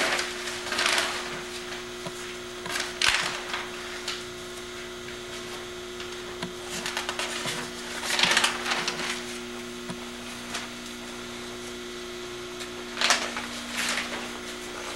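Newspaper pages rustling and being turned in several brief bursts, over a steady low hum.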